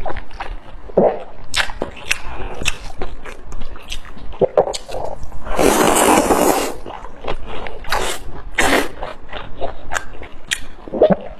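Close-miked eating: chewing and biting, with many quick wet clicks and smacks. About halfway through there is a louder rushing sound lasting roughly a second.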